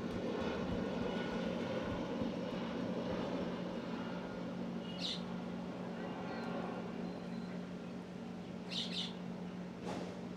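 A steady low hum of room noise, with a few short high bird chirps: one about halfway through and a quick pair near the end.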